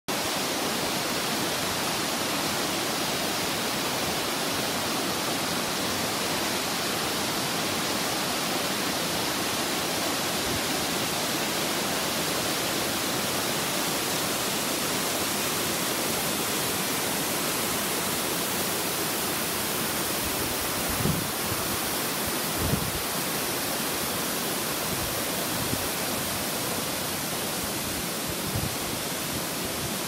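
Waterfall and its stream rushing over rock cascades, a steady, unbroken hiss of white water. A couple of brief low bumps stand out about two-thirds of the way through.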